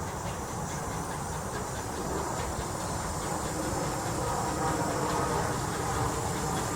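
Edison 4-4-0 steam locomotive and its train, a steady noise with a hiss of steam, growing slowly louder.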